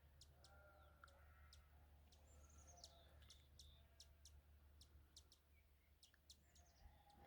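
Faint hummingbird calls: many short, sharp, high chips scattered throughout, with a falling squeak a couple of seconds in. These are the hummingbirds complaining at a feeder.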